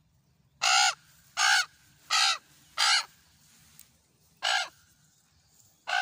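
Common raven cawing: four harsh caws in quick even succession, then two more after a short pause.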